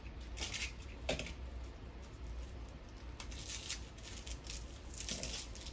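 Wrapping material rustling and crinkling in hands as a small wrapped item is felt and unwrapped, in several short rustles.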